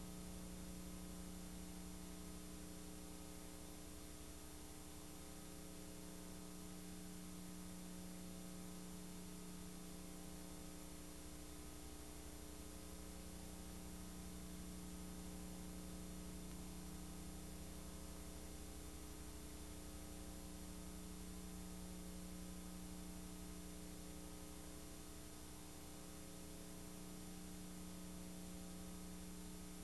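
Steady hum with an even background hiss, unchanging throughout.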